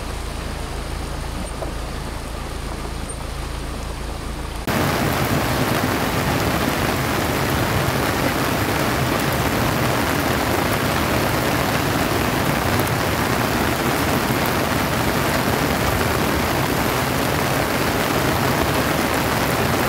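Heavy rain and muddy floodwater rushing down a road, a loud, even rush of water. About five seconds in it jumps up from a quieter steady rain hiss with a low hum.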